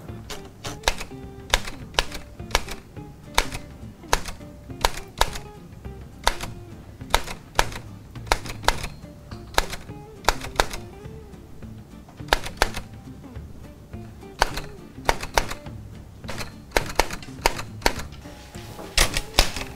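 Manual typewriter being typed on slowly, its keys striking one at a time in irregular runs of sharp clacks that are really loud in a quiet room.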